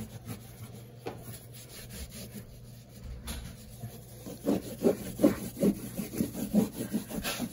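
A homemade disinfectant wipe scrubbed back and forth against a textured wall. It is faint scuffing at first, then steady rhythmic rubbing strokes, about three a second, from about halfway in.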